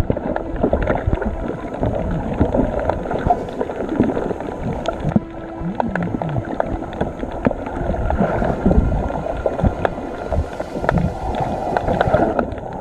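Water sloshing and gurgling around a kayak, with many small knocks and clicks against the hull and the GoPro.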